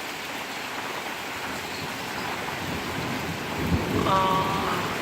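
Heavy rain pouring down steadily in a thunderstorm. Thunder rumbles in about three seconds in and is loudest near the end, with a brief high-pitched tone over it.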